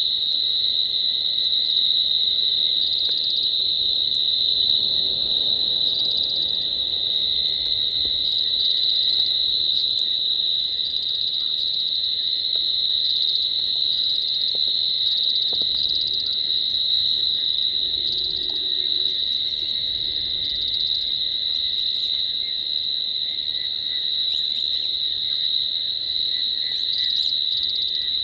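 Night chorus of crickets and frogs: a steady high-pitched trill, with a fainter lower tone beneath it.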